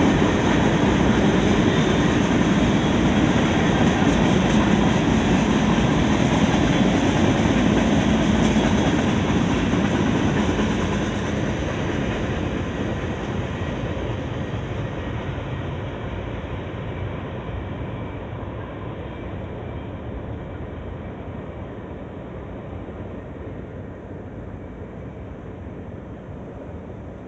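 Freight train's empty centerbeam lumber flatcars rolling past, their wheels running on the rails. About ten seconds in the last car goes by and the sound fades steadily as the train moves away.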